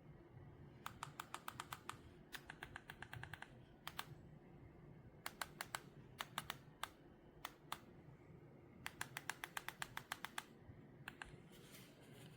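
Faint runs of quick small clicks, several a second, stopping and starting about five times, like keys or buttons being pressed in quick succession.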